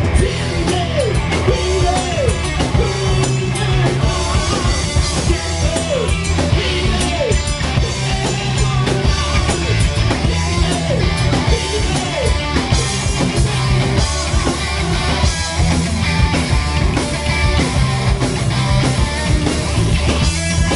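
Live rock band playing loud, with a drum kit keeping a steady beat under bass guitar and electric guitar.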